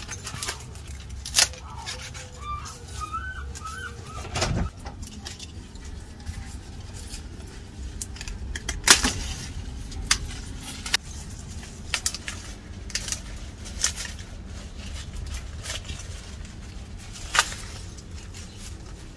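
Corn plants being handled while ears of sweet corn are picked by hand: leaves and husks rustling, with a series of sharp cracks as ears are snapped from the stalks. The loudest crack comes about halfway through. A bird calls briefly a few seconds in.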